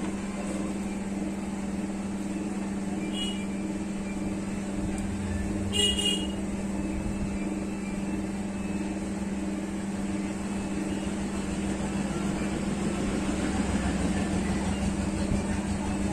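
Steady low hum and street traffic noise, with a brief high vehicle-horn toot about six seconds in and a fainter one about three seconds in.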